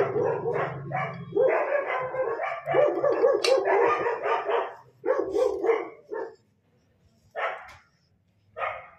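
A dog barking over and over, in a rapid run of barks for about five seconds, then a few single barks spaced about a second apart.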